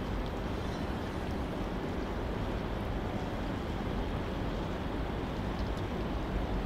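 Steady outdoor background noise at a riverbank: an even low rumble with no distinct events.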